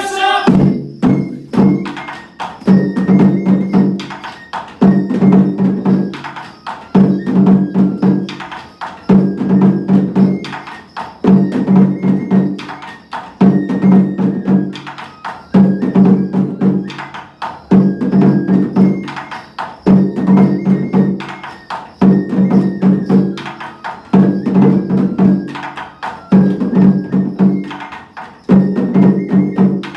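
Japanese festival dance music with drum beats and sharp wooden clicks, in a pattern that repeats about every two seconds.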